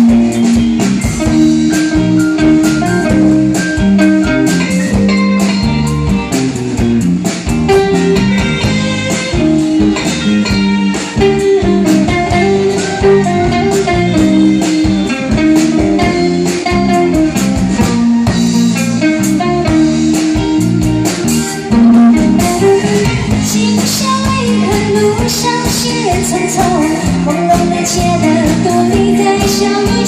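Live band playing a pop ballad on electric guitars, keyboard and drum kit, with a woman singing.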